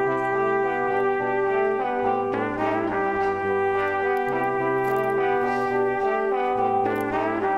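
Background music: slow instrumental chords held for a couple of seconds each, changing about every two seconds.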